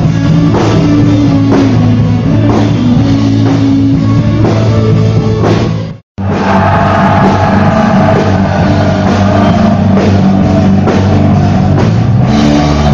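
Loud music with a driving drum beat. It cuts out abruptly for a split second about halfway through, then resumes with sustained notes over the beat.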